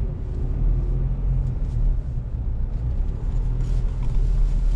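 Four-wheel drive's engine and tyre rumble heard from inside the cabin while driving on beach sand: a steady low drone.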